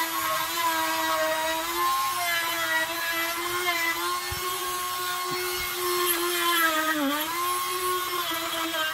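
Small high-speed power tool running steadily with a high whine, its pitch dipping briefly under load near the end, while it works at the stripped head of a motorcycle's speedometer-cable screw.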